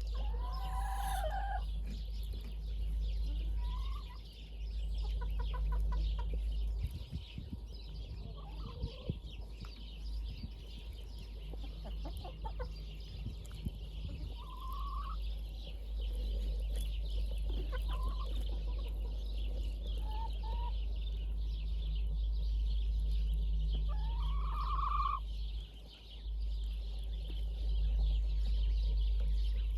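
Chickens clucking, with scattered short calls and a longer rising squawk near the start and again near the end, over a steady low rumble.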